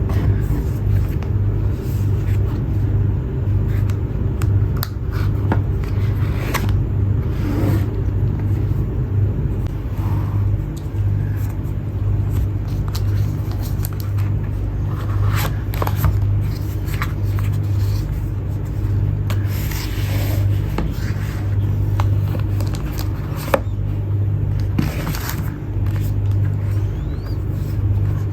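Packaging being handled: scattered scrapes, rustles and clicks over a steady low hum.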